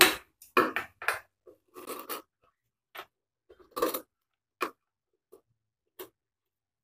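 Scissors snipping through denim in short, irregular cuts, with the fabric handled on the table between snips.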